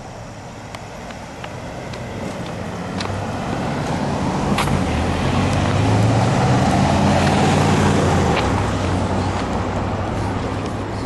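A motor vehicle driving past, its engine hum building to its loudest about six to eight seconds in and then fading. A few sharp clicks come in the first few seconds.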